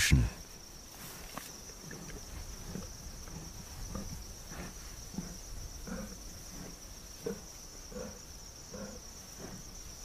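Steady high-pitched chorus of crickets or similar insects, with a string of soft, short low sounds repeating about once a second from about two seconds in.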